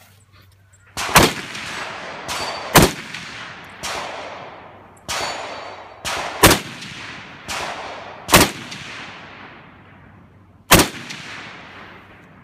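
FAL rifles firing 7.62×51mm NATO, about a dozen single shots one to two seconds apart, each followed by a long rolling echo; five of the shots are sharper and louder than the rest.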